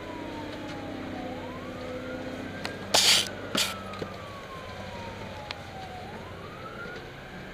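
Fire engine siren wailing in slow sweeps, each falling over several seconds and rising back more quickly, over the truck's steady engine drone. Two brief, loud bursts of hiss come about three seconds in.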